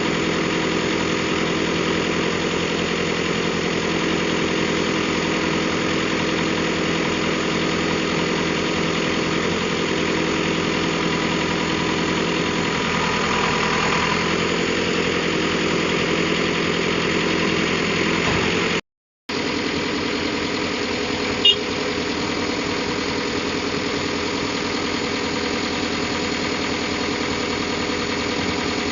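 Diesel engine of the truck or the backhoe loader idling steadily, with a brief dropout to silence about two-thirds of the way in and a single sharp click soon after.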